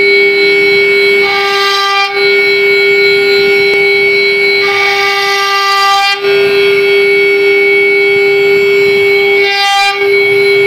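CNC router spindle running at high speed with a steady, high whine while its bearing-guided bit carves a relief pattern into a wood panel. Brighter cutting hiss swells in for a second or so, twice, and the sound dips briefly three times.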